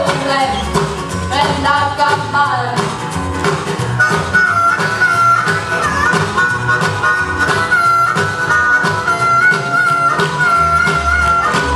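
Band music with a steady beat. A lead instrument plays sliding phrases at first, then holds one long wavering high note from about four seconds in until near the end.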